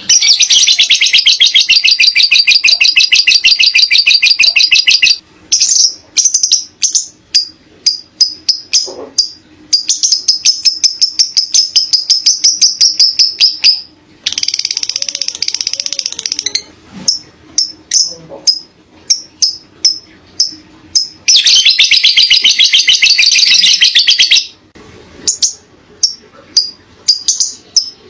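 Lovebird singing 'ngekek': long, rapid, high chattering trills, each lasting a few seconds. They come at the start, about halfway through and about two-thirds through, and between them run rows of sharp single chirps.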